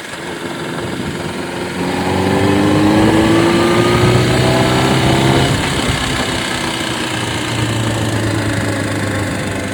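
Honda CBR600RR (PC37) inline-four engine revved gently, its pitch climbing slowly for about five seconds. It then drops back when the throttle is let off about halfway through, and runs steadily after.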